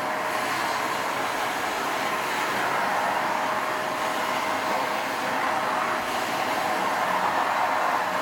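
Shark vacuum cleaner motor running steadily, with a constant whine over a rushing air noise as it draws suction.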